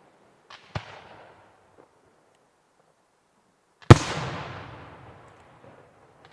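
Firework display: two small sharp pops, then about four seconds in one very loud aerial shell burst, its boom echoing and fading away over about two seconds.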